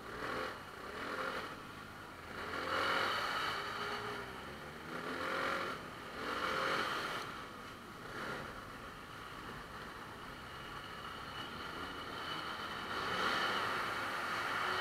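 Motorcycle engines riding at low speed, their pitch rising and falling with throttle and gear changes in the first seven seconds and again near the end.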